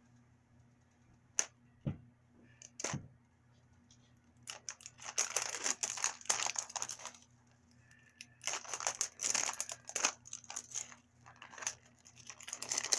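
A few sharp clicks, then thin plastic packaging crinkling and tearing in repeated handfuls as a Mini Brands capsule and its little wrapped items are unwrapped.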